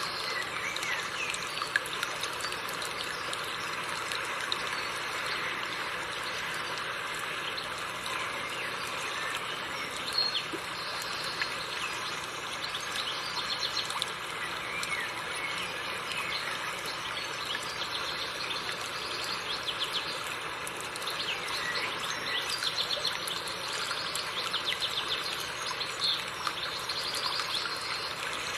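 River water flowing steadily over rocks, with small birds chirping and singing over it, the chirping busier in the second half.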